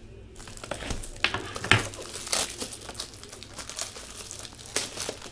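Plastic wrapping crinkling and rustling as it is handled, with several sharp crackles along the way.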